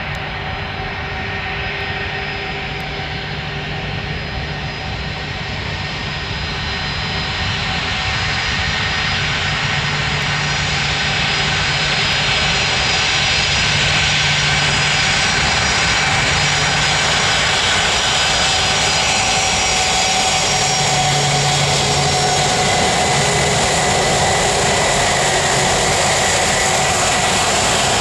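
A large aircraft's engines running loudly, with several steady whining tones over a dense rush. They grow louder over the first dozen seconds, then hold steady.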